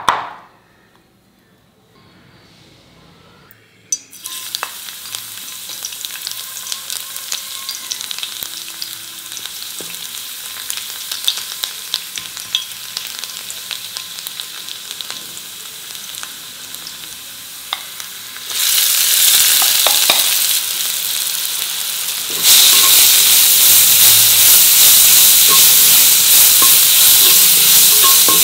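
Food frying in hot oil in a pan while it is stirred: a steady sizzle with scattered clicks. It starts after a few near-quiet seconds and steps louder twice in the last ten seconds.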